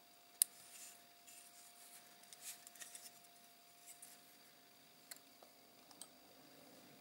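Plastic model kit parts (a Revell 1/72 Stearman Kaydet wing and fuselage) handled and dry-fitted together: a sharp click about half a second in, then faint rubbing and scraping, with a couple of light clicks later on.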